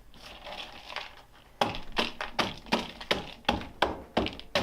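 A spoon knocking against a bowl while stirring goldfish crackers into melted candy: sharp taps about three a second, starting about a second and a half in after some quieter handling.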